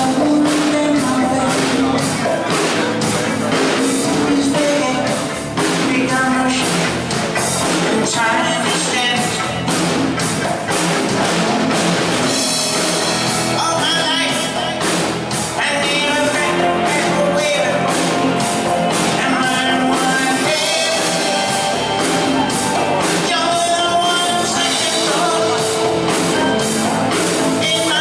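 Live band rehearsing a pop-rock song: drum kit keeping a steady beat under guitars, with a voice singing over it at times.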